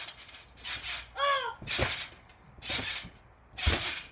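Pool water splashing in four short bursts, about a second apart, as someone moves about waist-deep in an above-ground pool. About a second in there is one short high-pitched call.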